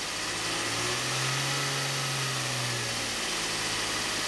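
Infiniti G35's VQ35DE V6 engine running steadily while it warms up to purge air bubbles from freshly refilled coolant, its note rising slightly about a second in and settling back near three seconds.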